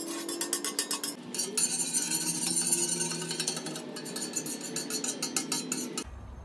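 Avocado oil crackling and spitting in rapid clicks on the hot steel top of a flat-top griddle, over a steady low hum. The crackling stops abruptly near the end.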